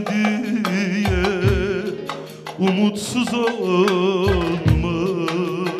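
Turkish folk music: a bağlama (long-necked saz) plucked in quick strokes over a backing beat, with a wavering melody line and low drum thumps in two pairs.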